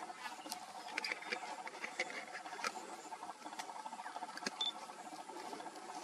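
Grassland ambience: a steady, rapidly pulsing trill from a background wildlife chorus, with scattered sharp clicks and a few short chirps about one to two seconds in.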